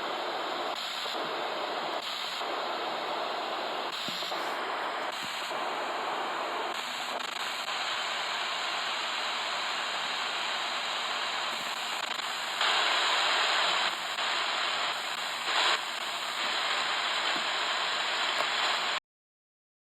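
Radio static: a steady hiss with no voice. It grows louder for about a second around thirteen seconds in, then cuts off suddenly about a second before the end.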